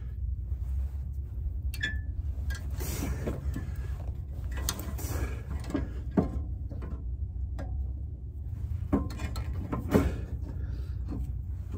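Pliers and loose brake hardware clicking and knocking in short, scattered metal-on-metal taps as a parking brake cable clip and rear brake caliper are worked free. Cloth rubs close by, over a steady low rumble.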